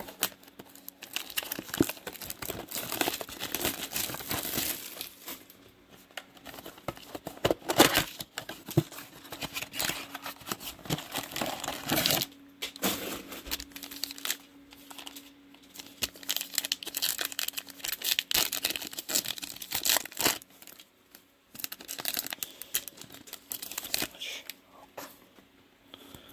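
Foil trading-card pack wrapper being torn open and crinkled by hand, in irregular bursts of rustling with a sharp crackle about eight seconds in.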